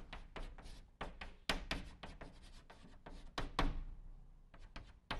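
Chalk writing on a blackboard: a quick run of short taps and scraping strokes, several a second.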